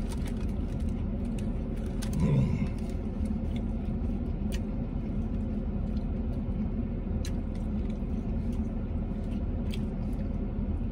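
Steady low vehicle rumble heard from inside the cabin, with scattered faint clicks of chewing and mouth noises, and one short louder sound about two seconds in.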